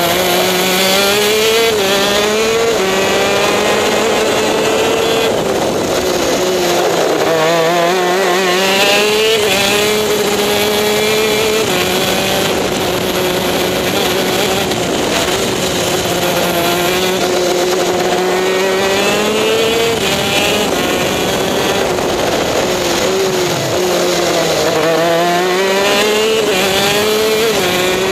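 TM K9C 125cc two-stroke shifter kart engine running hard on a flying lap, its pitch climbing under acceleration and falling away several times as the kart brakes and shifts down for corners.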